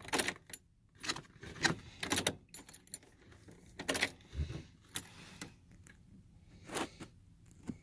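A bunch of ignition keys jingling and clinking in short, irregular bursts, about a dozen over several seconds, as the keys are handled.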